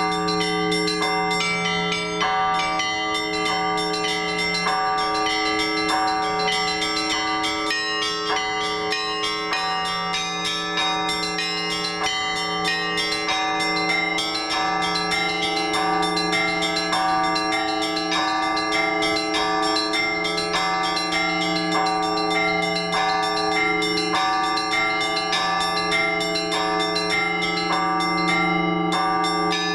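Orthodox church bells rung by a bell ringer in a continuous festive peal. Quick strikes on the small bells run over the steady hum of the larger bells.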